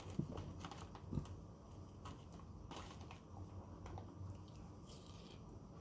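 Faint, scattered small clicks and taps over a low steady hum, from handling a plate of street-food pork, rice and egg, with two slightly louder knocks near the start and about a second in.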